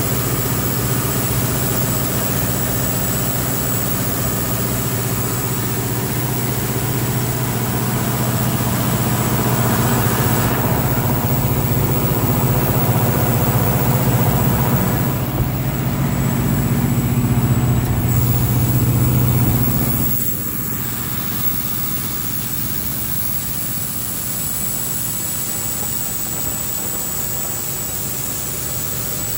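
Large Caterpillar diesel generator set engine running steadily with a heavy low drone and a thin high whine. About two-thirds of the way through, the sound drops suddenly to a quieter, lighter steady running.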